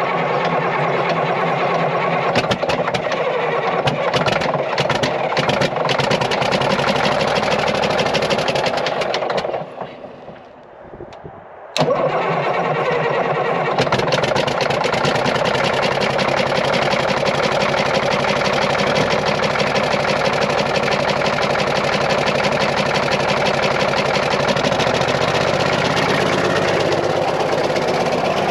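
Caterpillar 977L's 10.5-litre diesel cranking and starting, then running steadily after a brief lull about ten seconds in. The number 6 injector line is cracked open and the running does not change: cylinder 6 is dead.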